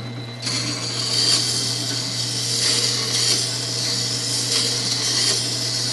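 Tormek T-3 wet grinder's motor humming as its water-cooled stone turns. From about half a second in, a chisel held in the jig is pressed onto the wet stone, adding a steady gritty hiss of steel being ground.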